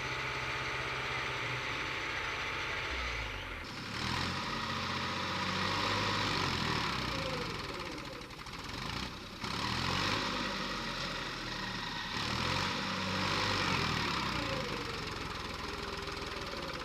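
Backhoe loader's diesel engine running steadily, then from about three seconds in its speed rises and falls again and again as it is revved.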